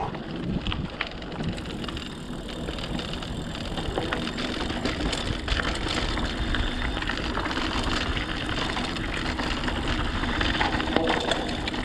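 Mountain bike riding on a rough forest track: a steady rolling noise with wind rumble on the microphone and many small clicks and rattles.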